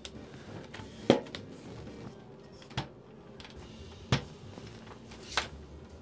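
Tripod being handled: four separate sharp clicks and knocks of its legs and fittings, the loudest about a second in.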